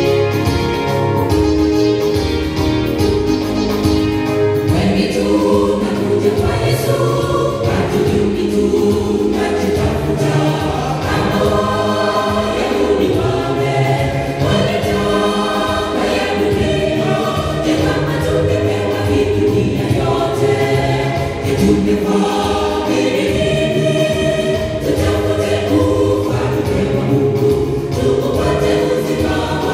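A small mixed gospel choir of men and women singing together in harmony, held notes moving from chord to chord without a break.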